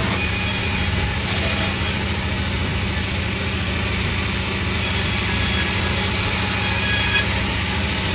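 Sawmill machinery running steadily: a low engine-like hum with a faint high whine over it.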